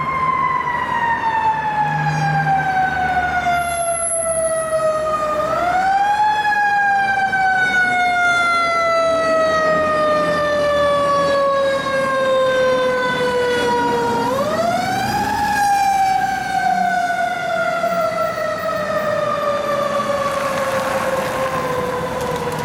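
Federal Q2B mechanical siren on a fire engine, slowly winding down in pitch and revved back up twice, about five and fourteen seconds in, coasting down again after each rise.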